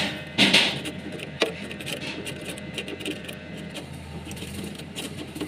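A brush stroke scraping silicone sealant across radiator fins: one short scratchy swipe about half a second in and a sharp click about a second and a half in, then only faint background noise.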